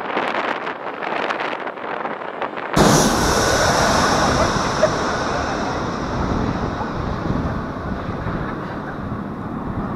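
Jet engines of a Boeing 737-700 passing low overhead on landing, heard as a loud rush with a high whine that slowly fades as the airliner moves away down the runway. Wind buffets the microphone. The first three seconds hold quieter, gusty jet noise before the sound jumps abruptly louder.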